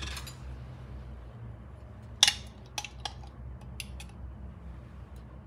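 Metal measuring spoon clinking against a jar and bowl while a teaspoon of seasoning is scooped out: one sharp clink about two seconds in, then a few lighter taps, over a low steady hum.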